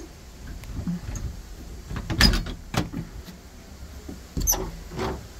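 A metal door latch being worked by hand, with about five clanks and knocks of the latch and door, the loudest about two seconds in. The door is locked and does not open.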